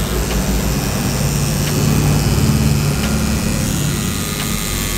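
Rotary tattoo machine running, a steady electric buzz as the needle works ink into skin.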